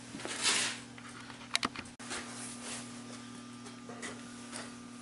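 Steel parts being handled on a milling-machine vise: a brief scrape, then two quick metal clicks and a few faint taps, over a steady electrical hum.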